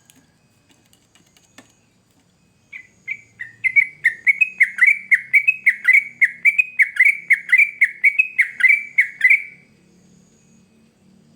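Yellow-vented bulbul singing a long, rapid run of bubbling, chirping notes, about three a second. It starts a few seconds in and stops a couple of seconds before the end.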